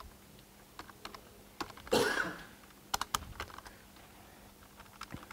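Typing on a computer keyboard: a handful of scattered, unhurried keystrokes. A brief, louder noise comes about two seconds in.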